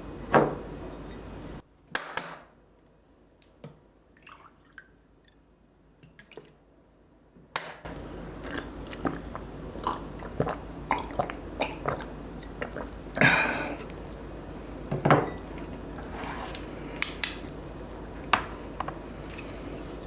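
Eating sounds: cutlery clicking and knocking against dishes, and chewing of braised pork-belly kimchi stew and rice, with scattered sharp clicks and a few louder knocks. A steady background hum drops out for a few seconds near the start.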